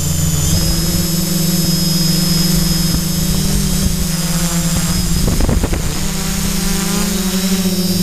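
Quadcopter's brushless motors and propellers buzzing steadily with a high whine, heard from on board. About five and a half seconds in, the motor pitch briefly wavers with a short rush of noise.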